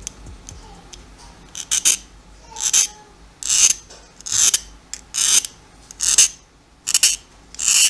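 A Japanese hardness-testing file, the 60 Rockwell file, drawn again and again across a hardened 15N20 steel blade. About eight strokes come just under a second apart, starting about a second and a half in. The file skates over the steel with a high-pitched scrape rather than a dull, low one, showing that the blade is harder than 60 Rockwell.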